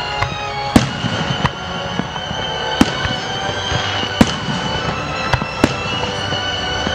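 Aerial firework shells bursting overhead in a series of sharp, irregularly spaced bangs, roughly one every second or so, the loudest about a second in and again near three and four seconds.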